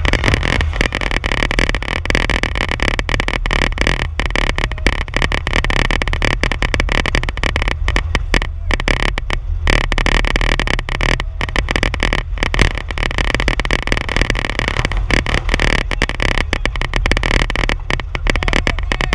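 Oval-track race car's engine running hard, heard from inside the car, with a steady rumble that keeps breaking up in rapid dropouts.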